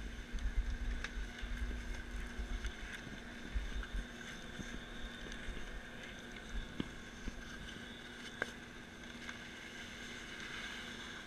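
Chairlift machinery humming steadily with a thin high whine, while skis and poles click and scrape on packed snow now and then. Wind rumbles on the microphone for the first few seconds.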